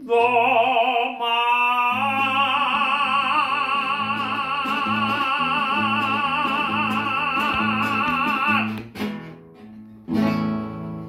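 A man sings the long held last note of a Mexican song with a wide vibrato over a strummed acoustic guitar. The note breaks off about nine seconds in, and a closing guitar chord is strummed a second later and left to ring.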